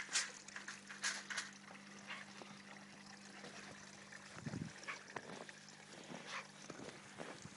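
Faint crunching of snow under footsteps and paws, in scattered short crackles, with one dull thud about halfway through.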